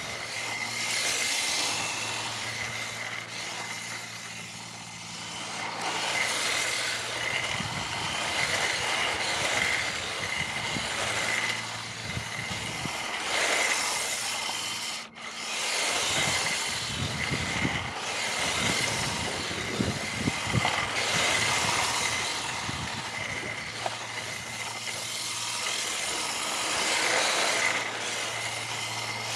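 Electric motor and gears of a WPL D12 kei drift truck, a small RC model, running, with its tyres on asphalt. The sound grows louder and fades again several times as the truck drives past and away, and a thin steady whine sits over it.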